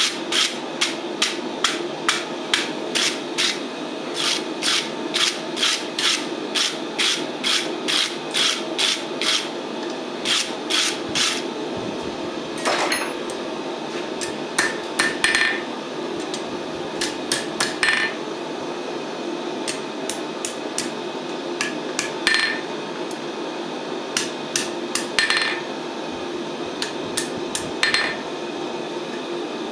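Blacksmith's hand hammer striking hot steel on an anvil: a fast, even run of blows, about two to three a second, for the first eleven seconds or so, then scattered single blows and short runs as the tong jaws are shaped. A steady hum runs underneath.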